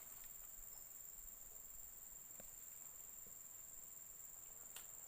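Near silence, with a steady high-pitched drone of forest insects such as crickets and a few faint soft clicks.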